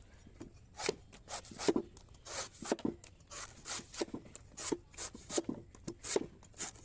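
A run of short, uneven scraping strokes, about one or two a second, from a hand-forged steel chopper blade being worked, either slicing through something or being stroked across a sharpening surface.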